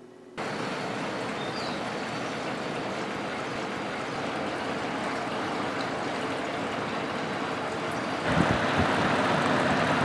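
Box fan running as a DIY evaporative cooler: a steady rush of air with a faint motor hum. About eight seconds in it grows louder, with gusts of the fan's air buffeting the microphone.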